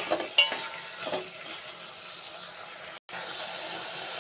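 A spatula scraping and clinking against a steel pot as onion, tomato and mookirattai (punarnava) greens are stirred, with a few sharp clicks in the first second or so. A steady frying sizzle follows, broken by a brief gap about three seconds in.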